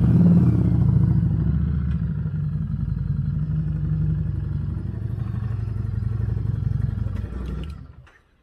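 Harley-Davidson Street 500's liquid-cooled V-twin running at low speed as the motorcycle creeps forward, then shut off about eight seconds in, its sound falling away quickly.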